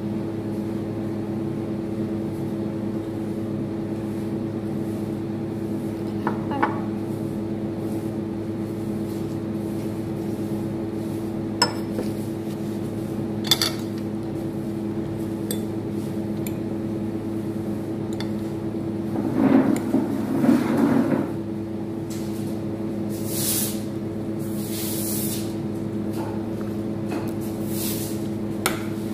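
A steady low hum with several fixed pitches runs throughout. Over it come a few sharp clinks of a glass jar and a fork against a glass tabletop and plate. About twenty seconds in there are a couple of seconds of a fork scraping and tossing noodles on a plate.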